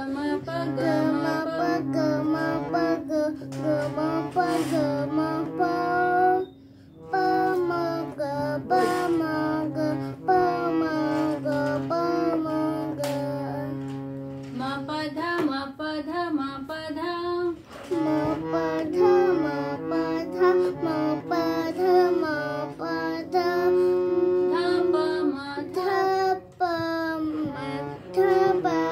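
Harmonium being played: a low reed note held steady under short notes stepping up and down, with a child's voice singing sargam syllables along with it, broken by a short pause about six and a half seconds in.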